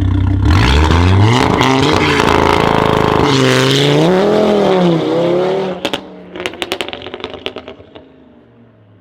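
Straight-piped Audi RS3 8P's turbocharged five-cylinder launching hard. The exhaust note jumps up about half a second in and the revs climb, break at a gear change, then waver up and down as the car pulls away. From about six seconds the exhaust crackles and pops in a rapid string as the engine note dies away.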